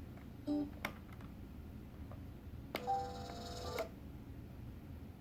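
Portable radio speaker giving a low static hiss between programmes, with a few clicks and short snatches of sound, and a brief held two-note tone about three seconds in.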